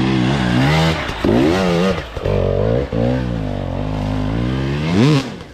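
Dirt bike engine revving up and down several times, ending with one quick rev that rises and drops about five seconds in.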